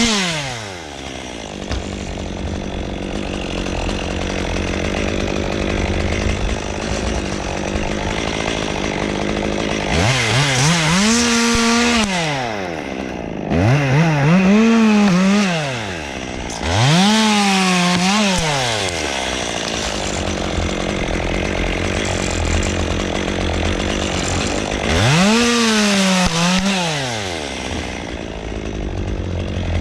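Two-stroke chainsaw dropping from full throttle to idle, then revved up four times for a second or two each, falling back to idle between.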